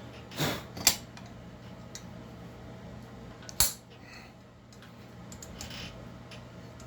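Metal clinks and knocks from tools and parts being handled while a chainsaw is taken apart, with one sharp clank about three and a half seconds in, over a low steady hum.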